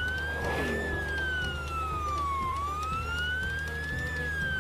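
Ambulance siren wailing, its pitch rising and falling slowly, about once every three seconds, over a steady low hum.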